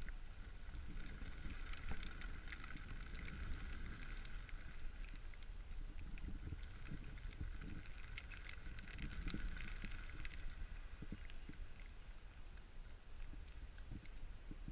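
Skis sliding and scraping over packed snow during a downhill run: a steady hiss broken by many short scrapes and clicks, over a constant low rumble.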